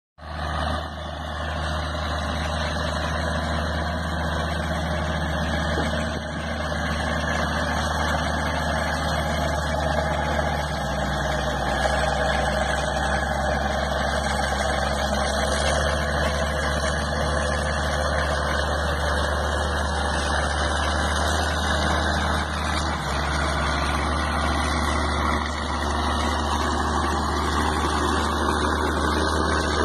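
Diesel engine of heavy farm machinery running steadily: a continuous low engine hum with mechanical noise above it, with no marked revving or changes.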